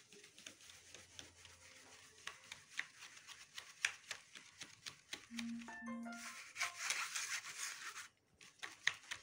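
Flour being sifted through a plastic hand sieve: a dry, scratchy rubbing with many quick light ticks, growing denser and louder for a second or two past the middle.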